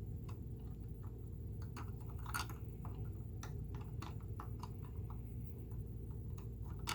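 Scattered light clicks and taps of small metal parts as the bobbin case stopper is dropped into place and adjusted in a Singer 6211C sewing machine's hook area, irregular like typing.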